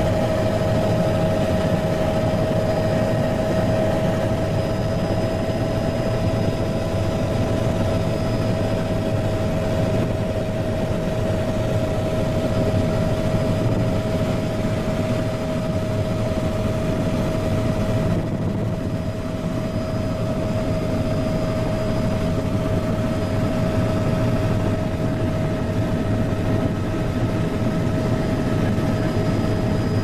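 Aircraft engine droning steadily, heard from inside the cabin during flight: an even low rumble with a constant whine.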